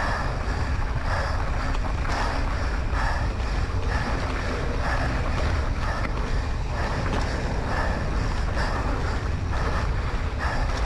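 Wind buffeting the camera's microphone at riding speed, a steady rumble, with the rider's heavy breathing coming through about once a second.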